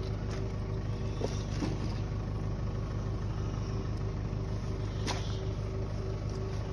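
A motor running steadily with an even low drone, with a few faint clicks over it.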